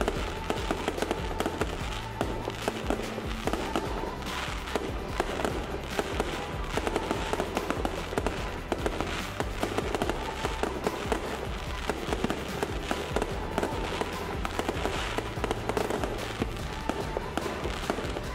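Fireworks bursting overhead with dense, rapid crackling and popping. Music with a steady bass line plays underneath.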